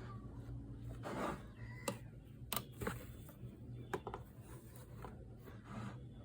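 Small objects being handled: a brief rustle about a second in, then several sharp little clicks and taps, over a steady low hum.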